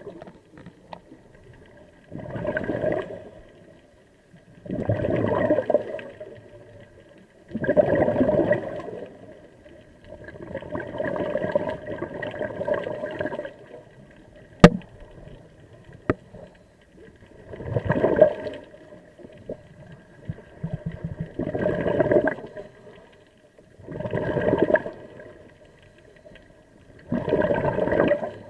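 Scuba diver breathing through a regulator underwater: exhaled bubbles gurgle out in bursts of a second or so, about every three seconds, with quieter gaps for the inhale. Two sharp clicks near the middle.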